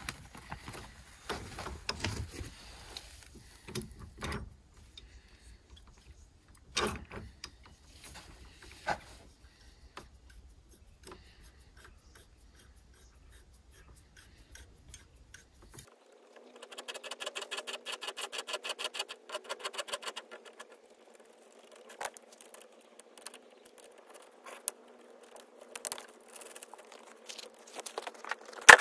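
Clinks, scrapes and knocks of hand tools and metal gland parts as steel wire armoured cable is terminated, a gland being tightened with a spanner. A little past the middle the sound changes to a rapid, even run of clicks lasting about four seconds, then scattered knocks.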